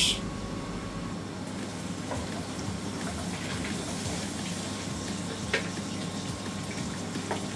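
Blended tomato and bell pepper purée pouring into a hot cast-iron pot and sizzling steadily, with a light knock about five and a half seconds in.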